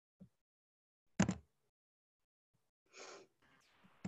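Near silence on a video-call microphone, broken by a short, sharp breath-like noise about a second in and a soft breathy sound about three seconds in.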